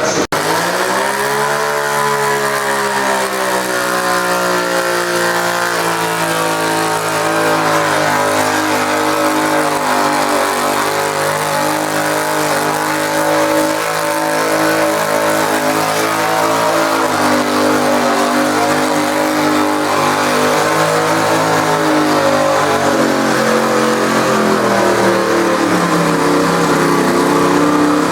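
Garden tractor engine running hard at high revs while pulling a weight sled. The pitch climbs over the first couple of seconds, then holds with small wavers and sags slightly toward the end.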